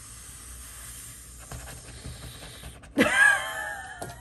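A steady faint hiss, then about three seconds in a short, drawn-out vocal sound from a person that falls in pitch.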